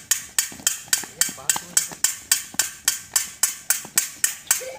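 A rapid, even beat of sharp strikes, about four a second, that stops suddenly near the end. It is the game's signal: the children run while it sounds and stop when it stops.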